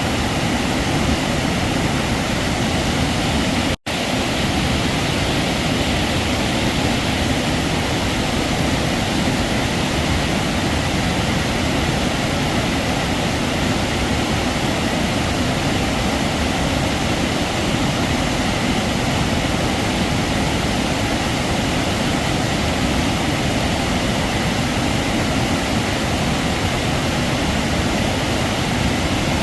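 Heavy waterfall: falling water rushing steadily and loudly. About four seconds in it cuts out for a split second.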